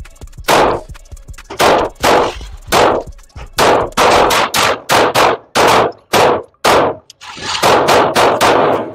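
A Smith & Wesson M&P 2.0 pistol firing a string of about fifteen shots, each with a short echo from the indoor range. The shots come about a second apart at first, then faster from about three and a half seconds in.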